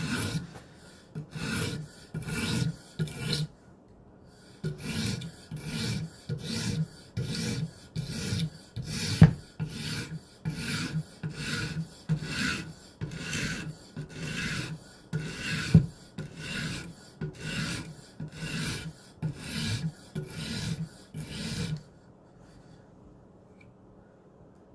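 Steel knife blade scraped across an 80-grit diamond sharpening stone in quick back-and-forth strokes, about two a second, with a short break about four seconds in. Two sharp clicks stand out among the strokes, which stop a few seconds before the end.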